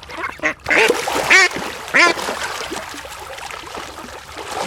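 Mallard ducks quacking: three loud quacks within the first two seconds, then softer quacking from several birds behind.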